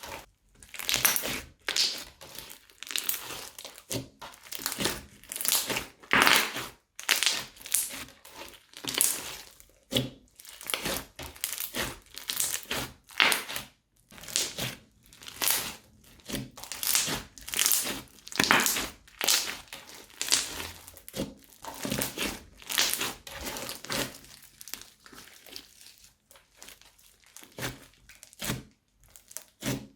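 Crunchy slime squeezed and pressed by hand, crackling and popping in repeated bursts about once a second.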